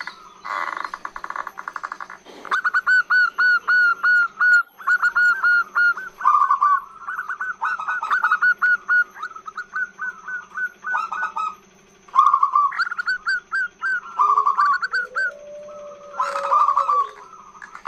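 Female zebra dove (perkutut) singing its long call: fast runs of short, clipped cooing notes in several bursts, with brief pauses between them. This is the kind of call used as a lure (pancingan) to draw males.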